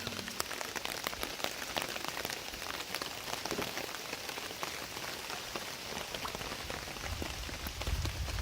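Heavy rain falling steadily, a dense noise of many small drop hits. A low rumble rises under it in the last second or so.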